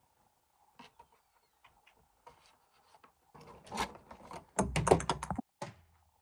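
A cardboard toy box being opened and its paddle rackets pulled out. Scattered light clicks and rustles give way, about three and a half seconds in, to a dense burst of rattling and crinkling that lasts about two seconds.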